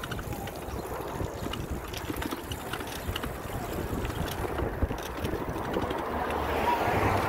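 Wind buffeting the microphone of a camera carried on a moving bicycle: a rushing, rumbling noise with uneven gusts, growing louder toward the end.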